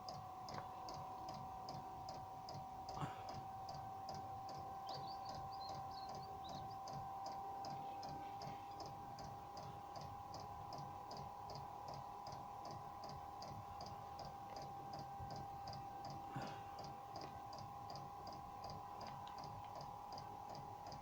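Diesel heater's fuel dosing pump ticking evenly, about two to three times a second, over the steady whine of the heater's blower, during a start attempt that fails to ignite. Two single knocks stand out, about 3 and 16 seconds in.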